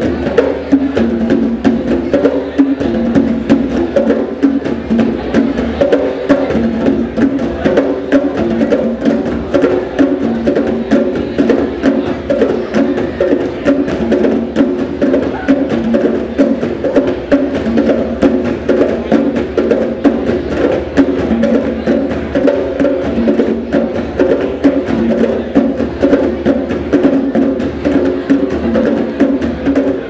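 Several djembe drums played by hand together in a fast, steady rhythm of strikes.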